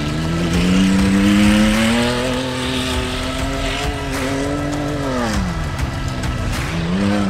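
Off-road race truck's engine revving hard under load: its pitch climbs steadily for about five seconds, drops away sharply, then rises again near the end.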